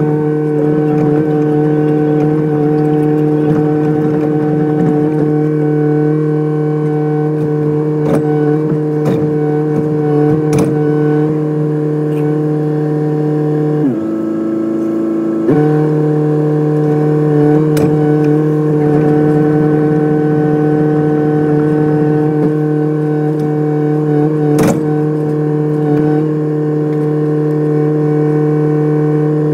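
Kubota excavator running steadily at high revs with a constant whine. About fourteen seconds in, the revs sag for a second and a half, then come back up. A few sharp, isolated clicks or knocks.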